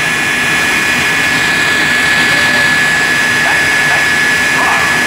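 The jet engine of the Bone Shaker jet truck running steadily and loudly, a high-pitched turbine whine over a constant rushing roar.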